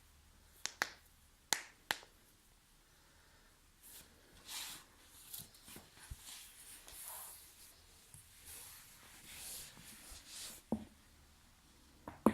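Spinal joints cracking under a manual adjustment: four sharp pops in the first two seconds, then two more near the end, the last the loudest, with softer noises in between.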